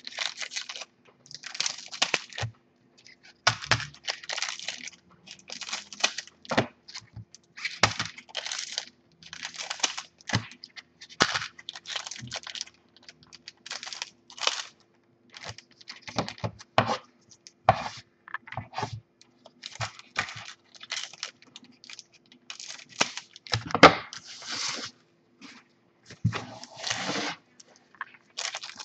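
Foil trading-card packs being cut open with scissors and their wrappers crinkled and handled, in a run of short, irregular crackling snips and rustles. A faint steady hum sits underneath.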